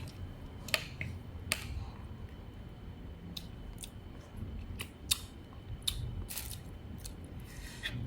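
Scattered sharp clicks and taps of utensils and dishes being handled, a dozen or so irregular knocks over a low background rumble.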